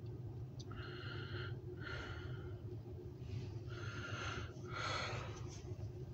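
Several breaths close to the microphone, each a short hiss, over a steady low hum inside a car's cabin.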